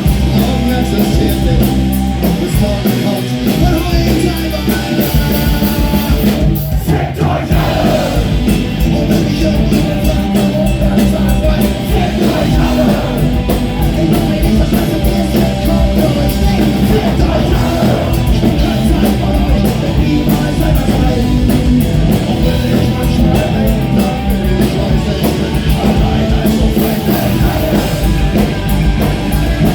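Punk rock band playing live at full volume: electric guitars and drums, with sung vocals over them.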